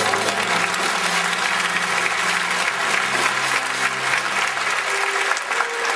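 Circus audience applauding a hand-balancing act, with sustained band music underneath; the clapping fades near the end.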